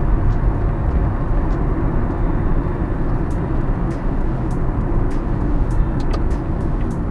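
Car driving, heard from inside the cabin: a steady low rumble of engine and road noise, with scattered faint ticks in the second half.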